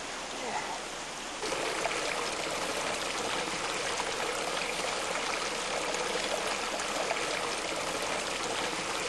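Water running into an open-air hot-spring pool: a steady rushing trickle that gets louder about a second and a half in.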